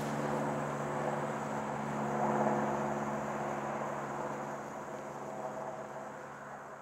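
Steady outdoor background rumble and hiss with a low electrical-sounding hum, swelling a little about two seconds in, then fading out near the end.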